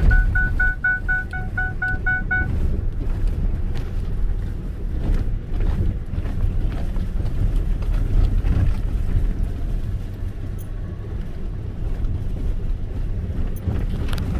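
Pickup truck driving over beach sand: a steady low rumble of engine and tyres with wind buffeting the microphone. For the first two seconds or so a rapid in-cab warning chime beeps about four to five times a second, then stops.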